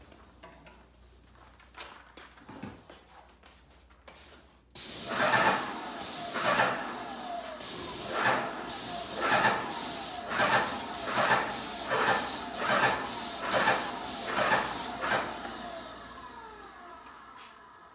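Graco GX FF airless paint sprayer hissing through its gun in about a dozen short spray passes, each cut off sharply at the trigger, starting about five seconds in and dying away near the end.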